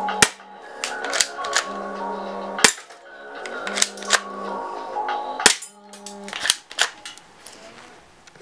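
Metal airsoft BB pistol firing single sharp snapping shots at an irregular pace, about a dozen in all, over background music that stops about six seconds in.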